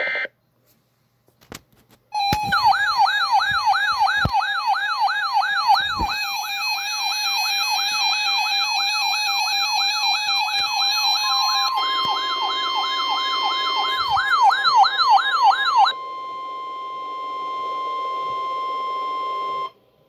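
NOAA weather radio receivers sounding their warbling alert siren for a tornado watch, a rapid rising-and-falling tone about two and a half times a second. Partway through, a steady single-pitch alert tone from the broadcast joins in and carries on alone after the warbling stops.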